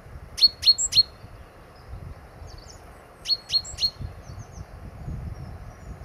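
A small songbird calling: two quick runs of three sharp, high notes, about three seconds apart, with fainter chirps in between.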